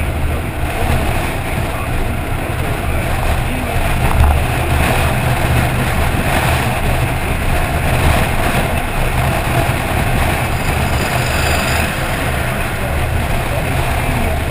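Steady rush of wind and road noise at motorway speed, picked up by a camera mounted on the outside of a moving car, with heavy low rumble from wind on the microphone.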